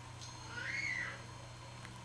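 Ring-tailed lemur giving one short call, about half a second long, that rises and then falls in pitch, over a steady low hum.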